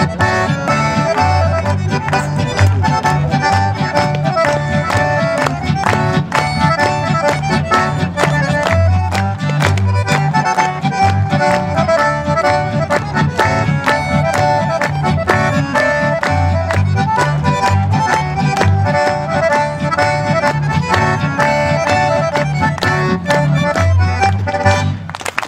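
Live accordion band: two accordions playing the tune over a strummed acoustic guitar and a plucked upright double bass. The music stops just before the end.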